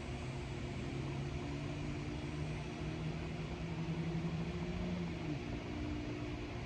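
Steady low mechanical hum over an even hiss of room noise. A low tone in it rises slightly and cuts off about five seconds in.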